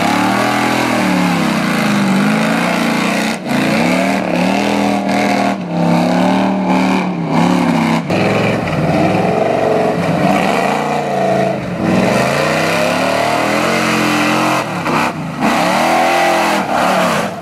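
Engine of a lifted Ford SUV mud truck revving up and down over and over as it churns through deep mud on giant tyres, with mud and water splashing.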